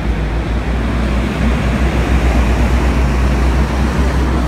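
Compressed-natural-gas city buses pulling away and passing close by: a steady engine rumble mixed with traffic noise, a little louder through the middle.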